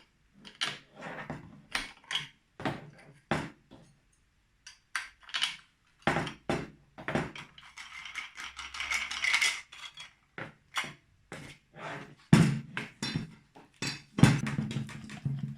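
Small clicks, knocks and clinks of metal and plastic angle-grinder parts being handled and fitted as a guard cover is swapped, with a short scraping stretch midway. A steady low hum sets in near the end.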